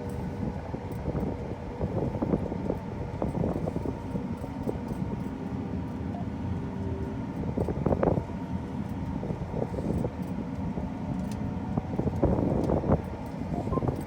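Heavy farm vehicle running steadily, with knocks and rattles, the loudest about 8 seconds in and again around 12 to 13 seconds in.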